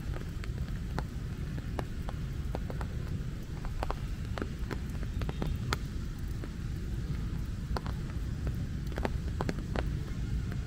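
Raindrops tapping on an umbrella overhead as separate, irregular sharp ticks, over a steady low rumble.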